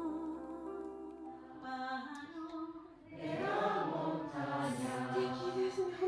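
A woman singing held notes over a guitar, then, about three seconds in, a group of voices singing together.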